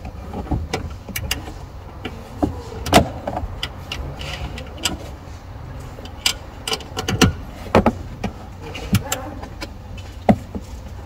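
Scattered clicks and metallic knocks from hand tools working on the fittings of a car's 12-volt battery, over a steady low hum.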